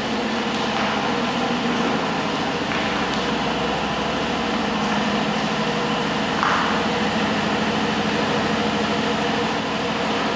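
Aston Martin DB11 on a test drive: steady engine and road noise, with a brief hiss about six and a half seconds in. No knocking is heard from the front suspension, which has just had a wrongly fitted nut replaced.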